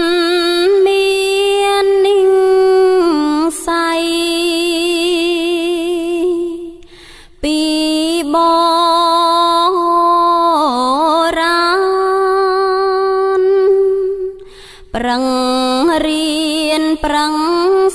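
A voice chanting a Khmer Buddhist dharma verse (thor) in long, drawn-out notes with a wavering vibrato. It breaks off briefly for breath about seven seconds in and again near fifteen seconds.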